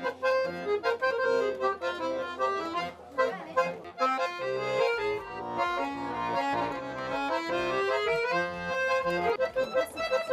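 Button accordion playing a tune: a melody of quick notes over regularly pulsing bass chords.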